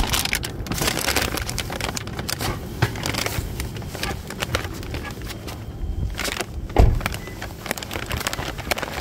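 Handling noise: crinkling and rustling of packaging with scattered clicks and knocks as a delivery order is taken from a car's back seat, then one heavy thump about seven seconds in, a car door shutting.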